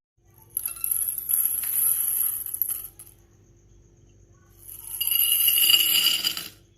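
Balls rolling and rattling down a wooden marble-run track in two runs, about half a second in and again near the end; the second run has a light metallic ringing.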